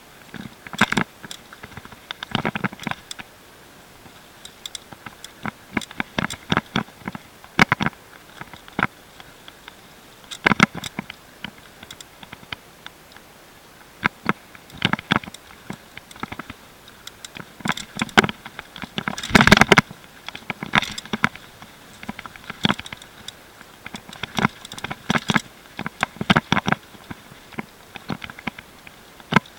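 Mountain bike clattering down a rough dirt trail: irregular knocks, clicks and rattles from the bike jolting over roots and stones, with the loudest run of clatter a little past the middle.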